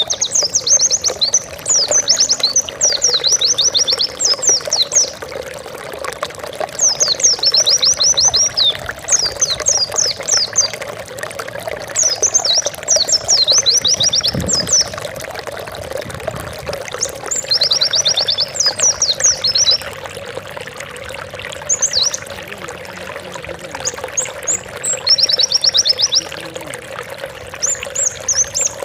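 White-eye (pleci) singing: bursts of rapid high, quickly falling notes, each phrase a second or two long and repeated every couple of seconds. The song runs over a steady background trickle of water.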